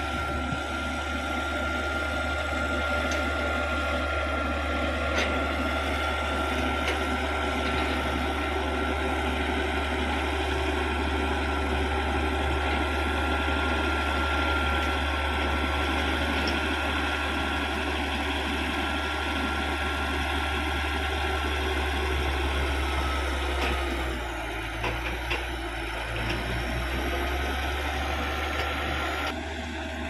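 Caterpillar D6G crawler bulldozer's diesel engine running steadily as the blade pushes wet soil, a low drone with a steady high whine over it. The sound dips and changes about three quarters of the way through.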